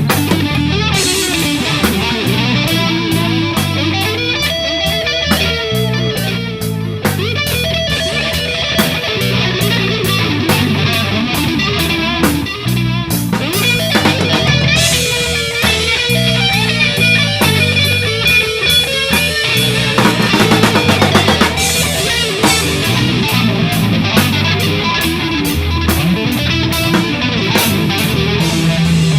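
Electric guitar, bass guitar and drum kit playing a rock jam: the electric guitar plays lead lines over a bass line and steady drums with even cymbal strokes.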